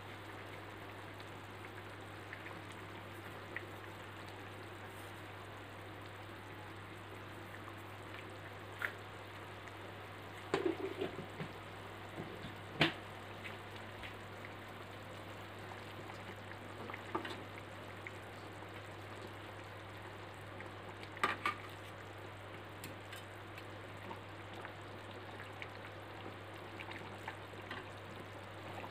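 Rendang sauce with chicken pieces simmering in a wok, a faint steady bubbling over a low hum. A few times the metal spatula stirs and knocks against the pan.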